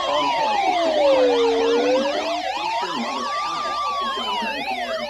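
Several electronic sirens sounding at once: a slow wail rising and falling about every four seconds under many fast yelping sweeps, about three a second.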